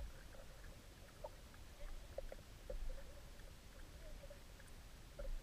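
Wooden paddles dipping and knocking lightly against a small wooden canoe: a few soft, scattered knocks and small water sounds over a low rumble.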